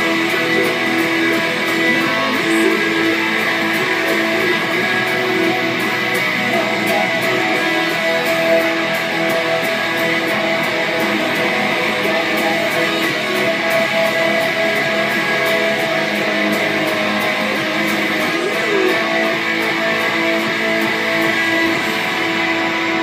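Semi-hollow-body electric guitar strummed in steady chords, played along with a recorded band track whose beat ticks evenly throughout.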